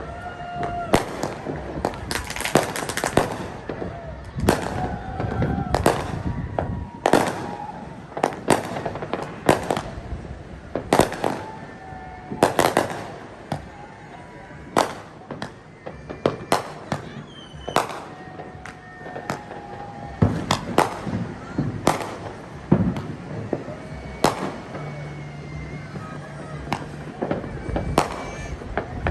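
Fireworks exploding: a long run of sharp bangs and pops at irregular intervals, often several in quick succession.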